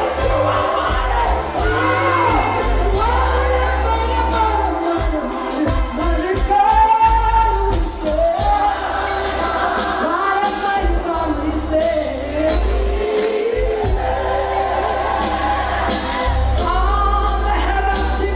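Live gospel music: a woman sings lead through a microphone, with the choir joining in, over a band with a heavy, steady bass and drum hits.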